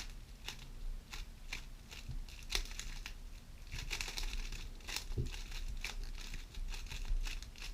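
GAN 11 M Pro magnetic speedcube being turned by hand through a scramble: a run of quick, irregular plastic clicks and clacks as the layers turn and snap into place.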